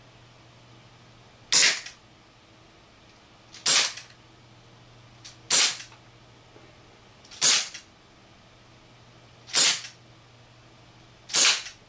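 Propane-powered HFC HG132 airsoft revolver firing six shots about two seconds apart, each a sharp pop, with a faint click just before some of them.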